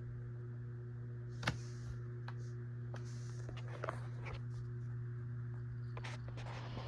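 Dell Inspiron 1521 laptop cooling fan running with a steady low hum, which the title calls a loud noise. Several short clicks or knocks sound over it, the sharpest about a second and a half in.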